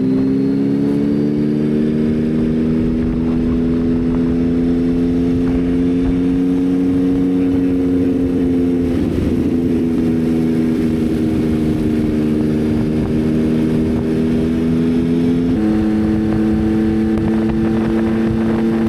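Yamaha XSR900's inline-three engine running under way, its pitch climbing slowly, then breaking briefly about nine seconds in, as at a gear change, before steadying again. Near the end its pitch shifts suddenly. Wind rush runs underneath.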